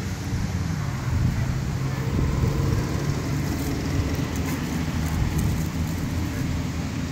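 Go-kart engines running on the track, a steady low drone whose pitch shifts a little as the karts go around.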